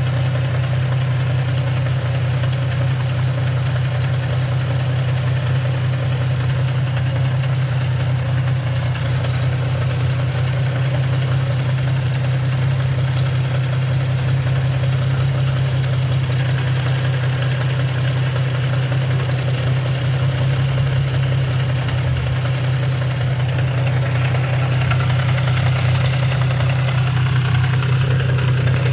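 Infiniti G35 coupe's V6 idling steadily, with a knocking from the six-speed manual transmission of the kind that shows when it is out of gear and goes away once it is put in gear. The sound grows a little louder near the end.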